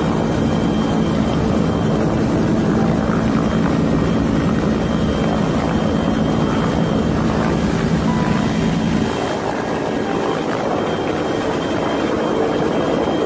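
Helicopter hovering close overhead: loud, steady rotor and engine noise, easing slightly about nine seconds in.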